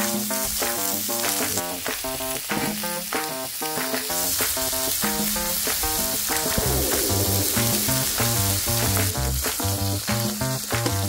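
Slices of pork belly sizzling steadily on a hot cast-iron griddle, with background music; a bass line joins the music about halfway through.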